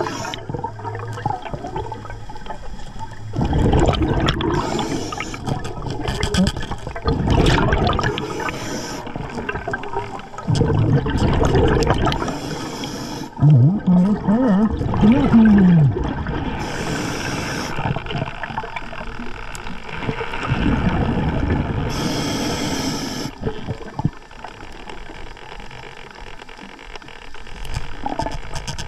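Scuba diver breathing through a regulator underwater: a hiss on each inhale about every four to five seconds, with the low bubbling of exhaled air between breaths. A wavering hum comes partway through.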